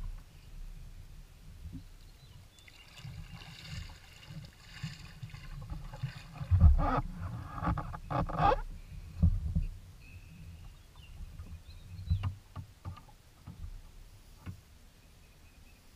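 Water splashing and sloshing against a Kawasaki Ultra 150 jet ski's hull as it is pushed off a gravel shore, with irregular knocks on the hull, loudest in the middle.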